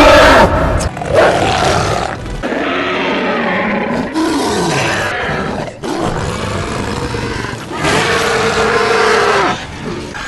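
A string of monster and warrior roars from film soundtracks, cut back to back: about six short roars and snarls of a second or two each, the pitch rising and falling within each one and several stopping abruptly at the cut.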